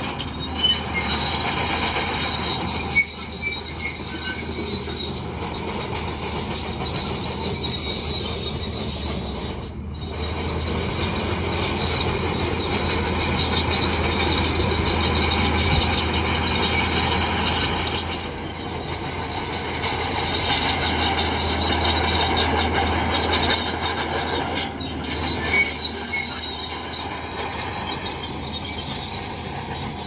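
Crawler bulldozer running, its diesel engine a steady low drone while its steel tracks squeal high-pitched and clank as it moves and pushes fill.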